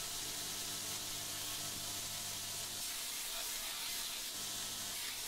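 Belt grinder running with a ceramic abrasive belt, grinding the spine of a steel knife blade: a steady hiss of steel on the belt over the low hum of the motor.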